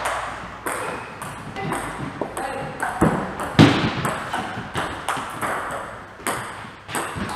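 Table tennis rally: a quick, irregular run of sharp clicks as the ball is struck by the bats and bounces on the table, with more ball clicks from rallies at neighbouring tables.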